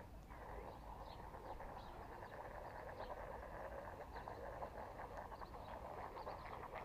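Small waves lapping and splashing against a stone lake edge, a dense fine crackle, over a low wind rumble on the microphone, with a few faint bird chirps.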